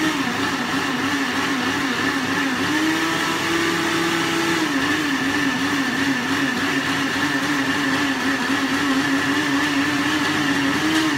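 Countertop electric blender running, blending cut potato and aloe vera gel without added water. The motor's pitch wobbles quickly as the contents churn, rises for a moment about four seconds in, and drops away as it is switched off at the end.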